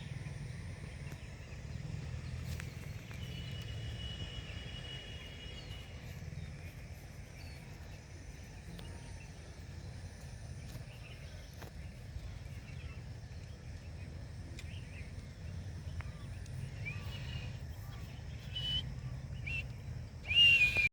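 Steady low background rumble with faint bird chirps, then a loud, short parrot screech near the end.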